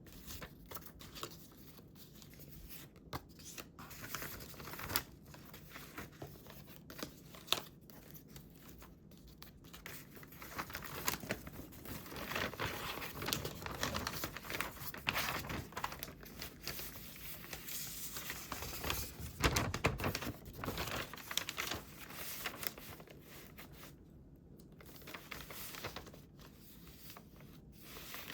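Paper being handled for scrapbooking: crinkling, rustling and tearing sounds. Scattered light taps at first, then a denser, louder stretch of rustling from about ten seconds in until past twenty seconds.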